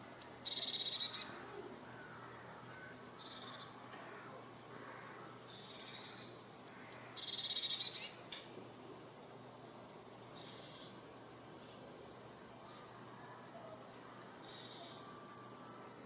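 Blue tit singing: six short phrases, each two or three thin, high notes dropping into a lower trill, with pauses of one to three seconds between them.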